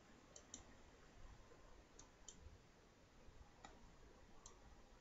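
Faint computer mouse clicks over near silence: two quick pairs of clicks in the first couple of seconds, then two single clicks.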